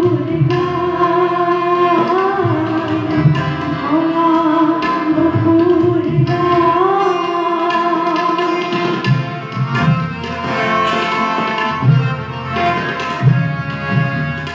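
Music: a melody in long, held, slightly wavering notes, likely sung, over a steady drum beat. The held melody fades after about nine seconds, leaving the drums and accompaniment.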